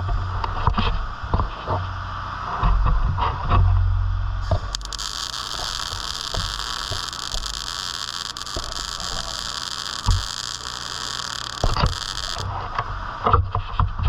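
Welding arc hissing steadily for about eight seconds, switching on about four and a half seconds in and cutting off sharply, over a low steady hum. Clicks and knocks of metal being handled come before it and again just after it stops.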